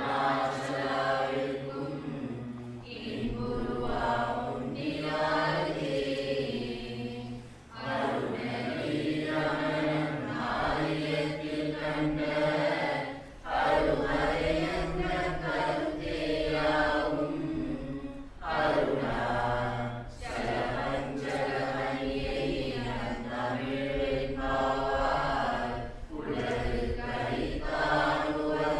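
A group of voices chanting a devotional hymn together in unison, in sung phrases of a few seconds with brief breaks between them, over a steady low drone.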